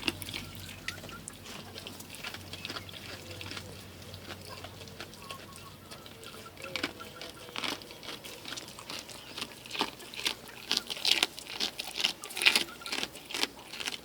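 A goat chewing fish: irregular crunching and crackling clicks, sparse at first and growing denser and louder about ten seconds in.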